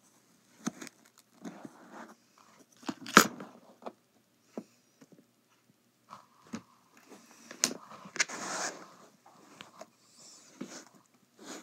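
Kinetic sand being pressed and crumbled by hand close to the microphone, giving soft crunching, with scattered knocks and taps against the table, the loudest about three seconds in.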